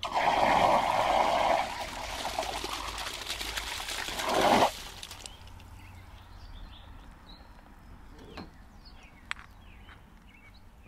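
Water rushing out of the open body of an irrigation backflow preventer as the supply is briefly turned on to flush out dirt. It runs for nearly five seconds and cuts off suddenly, followed by a few faint clicks.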